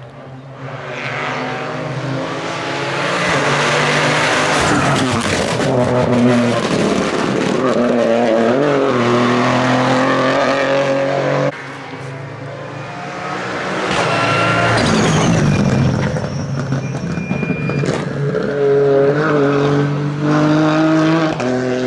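Rally car engines revving hard through a hairpin, one car and then a second after an abrupt cut about halfway through. Each engine's pitch climbs and falls repeatedly with gear changes and lifts off the throttle.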